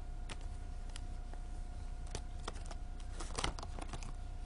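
Scattered light clicks and taps at an irregular pace, a cluster of them a little past the middle, over a steady low electrical hum with a faint steady tone.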